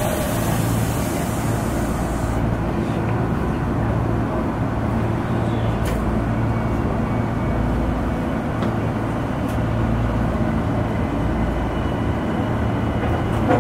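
Steady hum and rumble of a Tokyo Metro Ginza Line subway train standing at the platform, with a few faint knocks.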